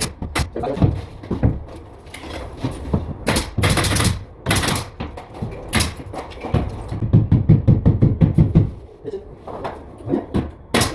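Interior carpentry work: scattered sharp knocks and thuds, about half a dozen hits, with a low rumble about two-thirds of the way in.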